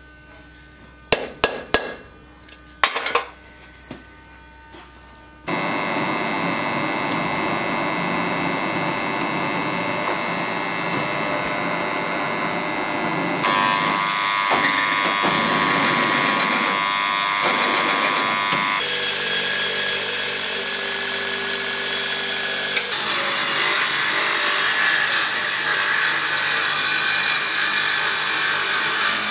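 A few sharp metal clinks, then a drill press starts running and its twist bit cuts into a steel block, throwing off curled chips. The drilling noise is steady, with its tone changing abruptly several times.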